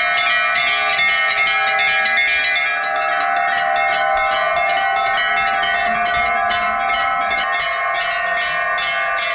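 Many hanging brass temple bells ringing together, struck rapidly and continuously so their tones run into one steady ringing.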